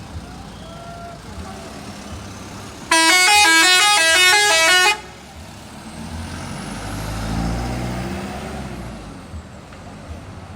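A bus's telolet horn, a multi-note musical air horn, plays a quick stepping tune for about two seconds about three seconds in and cuts off sharply. After it, a bus engine rumbles past, swelling and fading.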